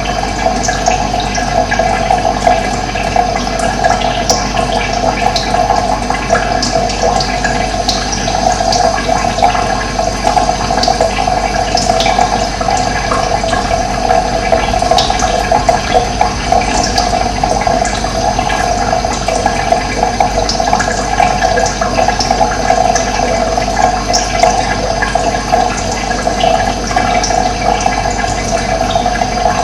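Steady rush of running water, flowing evenly with no pauses.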